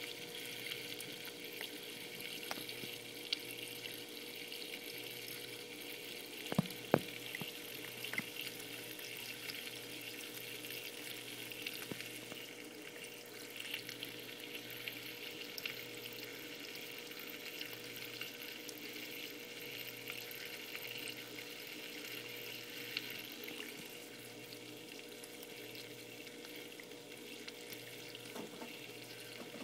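Water from a reptile dripper dripping and trickling into a chameleon enclosure, with faint scattered drip ticks over a steady hum. A couple of sharper knocks sound about seven seconds in.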